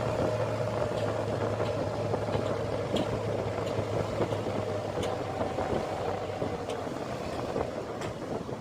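Small fishing boat's engine running at a steady pitch, dropping away about seven seconds in, with a few faint clicks.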